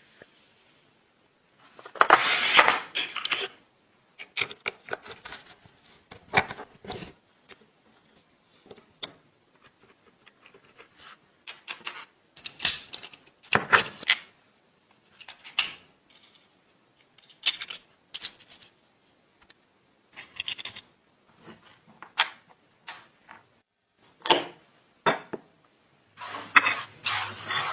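Small metal parts of a 1950s dynamo pocket light clinking, clicking and rattling as they are handled, in irregular short clusters with quiet gaps between.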